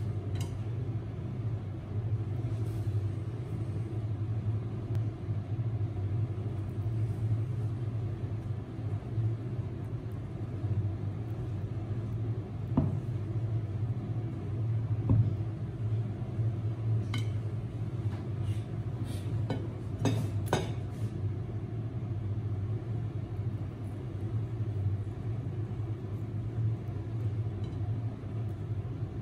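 A steady low rumbling hum, with a few light clicks and taps past the middle.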